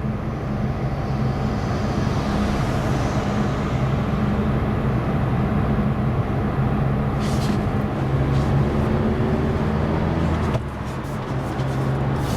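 Cabin noise of a Mazda with a 2.0 petrol engine driving at about 2000 rpm in third gear: a steady engine hum over tyre and road noise, heard from inside the closed car. The noise dips briefly near the end.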